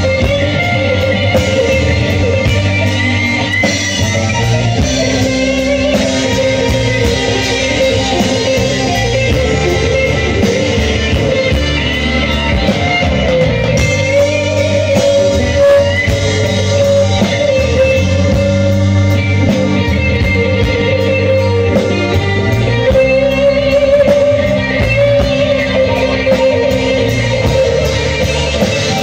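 Live band playing a blues improvisation, electric guitar to the fore over bass guitar and drums, with sustained, wavering lead notes and a shifting bass line.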